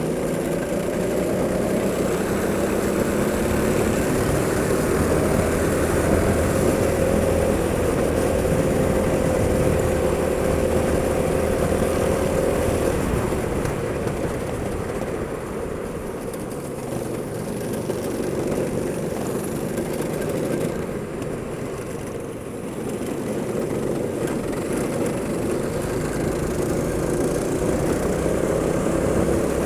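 Go-kart engine running under way, its pitch rising and falling as it speeds up and slows. It eases off twice, briefly, past the middle.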